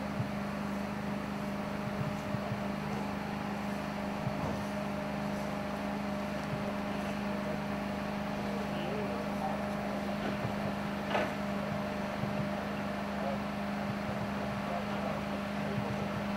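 Steady low machine hum of even pitch, with a single short click about eleven seconds in.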